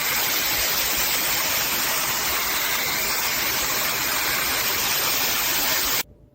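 Loud, steady rushing noise with no pitch to it, which cuts off abruptly about six seconds in.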